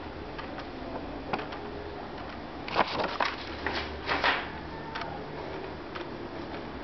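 Handling noise: a few light clicks, then a burst of rustling and knocking about three to four seconds in, over a steady low hum.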